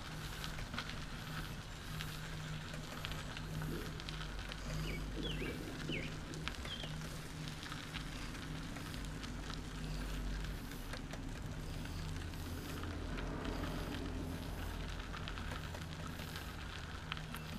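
Crackling rolling and wind noise from a trike moving along a paved trail, over a low steady hum, with a few short high chirps about five to seven seconds in.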